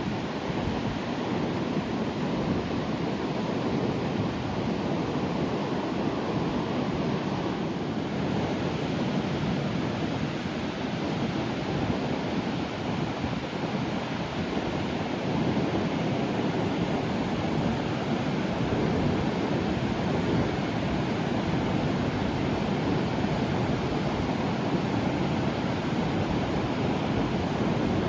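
Sea waves breaking and washing in a steady wash of surf, swelling a little louder past the halfway point, with some wind buffeting the microphone.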